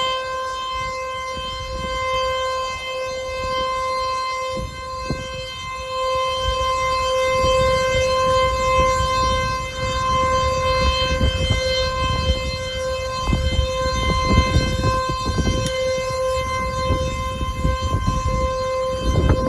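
Dam-discharge warning siren sounding one steady, held tone: the alarm that water is being released from the dam upstream. A low rumbling noise runs underneath it.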